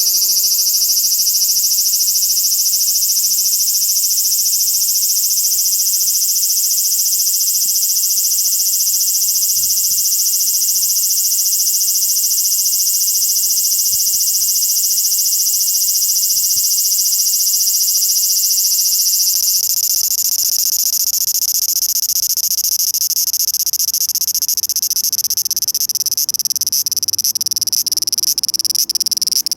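Cicadas calling: a loud, continuous, high-pitched drone that breaks into rapid pulsing near the end.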